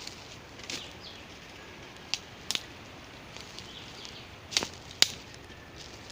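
Footsteps on a woodland trail: a handful of sharp, irregular snaps and crunches of dry leaves and twigs underfoot, the loudest two close together after about four and a half seconds. A faint, thin, steady whistle sounds twice in the background.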